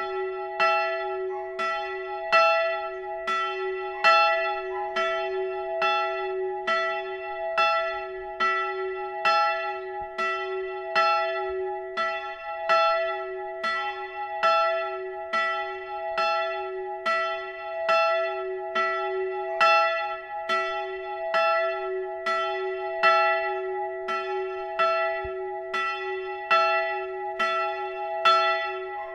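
A single swinging church bell ringing on its own, its clapper striking evenly a little more than once a second, each stroke's hum carrying into the next. This is the German Vorläuten, the one-bell ringing half an hour before the service begins.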